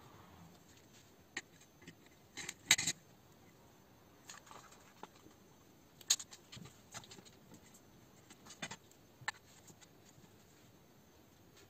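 Plastic RC buggy suspension parts clicking and knocking against each other and the metal chassis plate as they are handled and fitted by hand: scattered light clicks, loudest in a short cluster about two and a half seconds in, with a sharper click about six seconds in.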